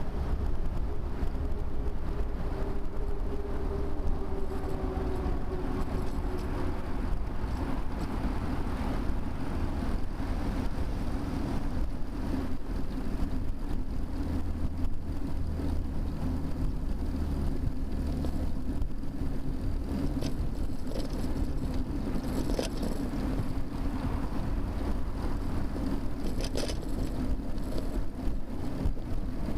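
Steady wind and rolling noise on a bicycle-mounted camera while riding, with motor traffic going by. There are a couple of short rattles about three quarters of the way through.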